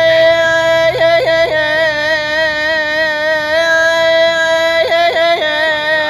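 A solo male voice singing in the Iraqi Shia eulogy (radood) style, holding one long steady note. Quick trilled vocal ornaments come about a second in and again near five seconds.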